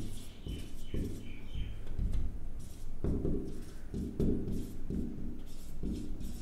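Whiteboard marker writing on a whiteboard, with a few short high squeaks from the tip in the first two seconds, over a steady low hum.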